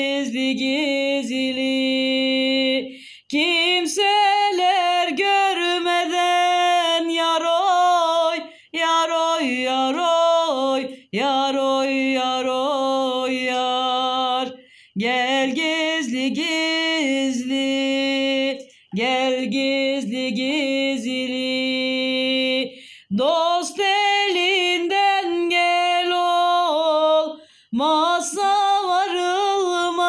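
Unaccompanied solo singing of a Turkish folk song (türkü): one voice in long, ornamented phrases of about four seconds, each followed by a short pause for breath.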